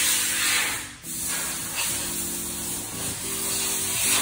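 Aerosol cleaner sprayed in two hissing bursts, a short one and then a longer one of about three seconds that stops near the end, used to dissolve old gel off a rain sensor.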